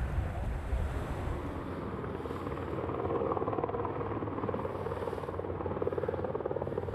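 Wind buffeting the microphone aboard a racing yacht, giving way about a second and a half in to the steady, fast-pulsing sound of a helicopter flying low over the sea.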